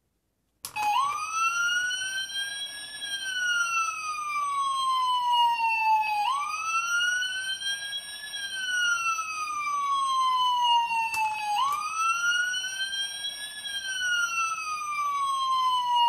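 Electronic siren from a Fireman Sam toy 4x4 mountain rescue vehicle, played through its built-in speaker. The tone sweeps up quickly and then glides slowly down, three times over.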